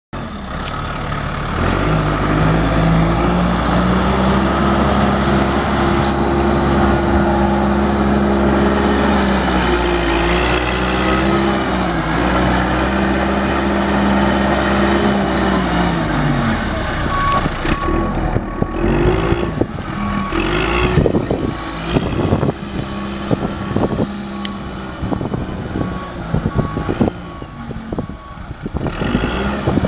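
1996 John Deere 310D backhoe's turbocharged diesel engine running at raised revs, its pitch falling about sixteen seconds in. From about seventeen seconds a backup alarm beeps steadily as the machine reverses, with scattered knocks and clanks.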